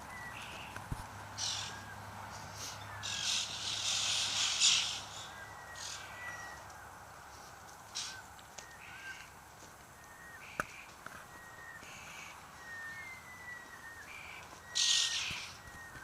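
A flock of white-winged choughs calling, with repeated harsh rasping calls and many short descending whistles. The rasping is loudest around four seconds in and again near the end.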